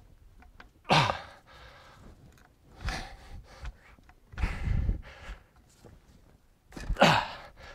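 A man's sharp, effortful exhalations, four in all, the loudest about a second in and near the end, as he strains to rock a stuck EGR valve loose.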